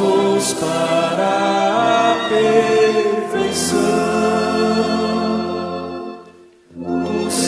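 Choir singing a Portuguese-language hymn of the Congregação Cristã no Brasil in several voice parts, holding long notes. There is a brief breath pause between phrases about six and a half seconds in.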